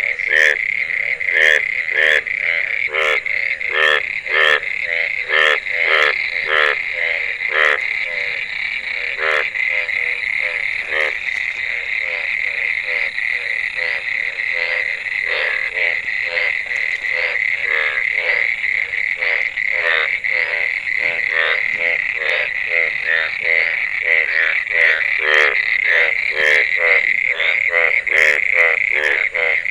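Frogs and toads calling after heavy rain: loud, repeated croaks, about one or two a second, over a continuous high-pitched chorus.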